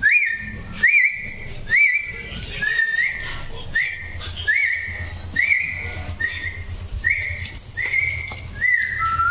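Toy Pomeranian puppy whining in high-pitched cries, about one a second, each rising quickly and then held, eager for its food.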